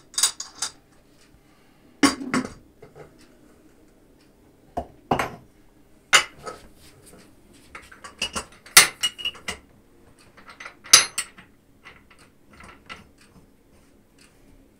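Irregular metal clanks and clicks of an Afghan kazan's lid being handled: its pressure valves checked, then the lid set on the cast-aluminium pot and clamped shut.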